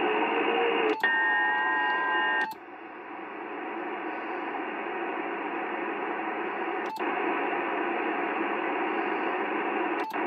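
Yaesu HF transceiver's receiver hiss, band noise, as it is switched from band to band, with a brief dropout at each band change about 1, 2.5 and 7 seconds in and again near the end. Between about 1 and 2.5 seconds a few steady tones sound over the hiss. After the band change at 2.5 seconds the noise drops sharply, then slowly builds back up.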